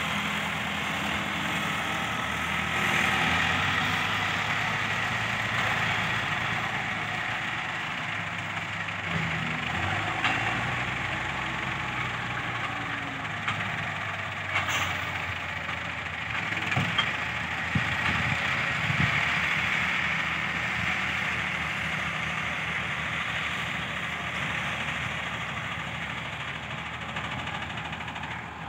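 Diesel engines of a Massey Ferguson tractor pulling a tine cultivator and a Caterpillar motor grader, running steadily under load, with a few sharp knocks about midway.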